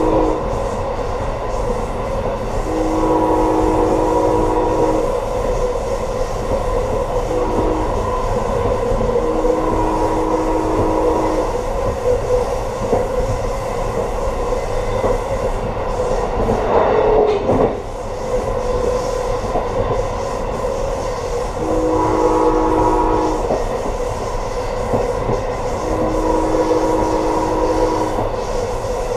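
Amtrak train's locomotive horn, heard from the rear car, sounding the grade-crossing pattern: the end of one long blast, then long, long, short, long, and two more long blasts near the end. Under it the steady rumble and clatter of the wheels on the track, with a brief rushing swell about two-thirds of the way through.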